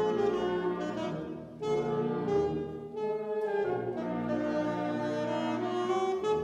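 Wind band of clarinets and brass playing sustained, changing chords, with brass to the fore. The sound thins briefly about a second and a half in and again around three seconds, then carries on full.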